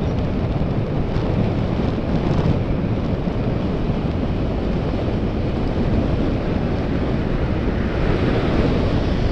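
Wind rushing over the microphone of a camera on a moving bicycle: a steady, loud low rumble of buffeting air.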